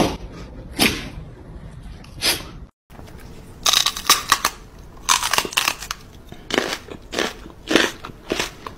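An angry cat hissing and spitting in a string of short, harsh bursts.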